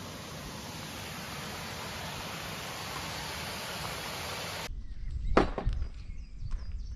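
Steady rush of water pouring over a small stepped weir in woodland. It cuts off abruptly about two-thirds through and gives way to footsteps on an open farm track, with one loud thump and birds chirping.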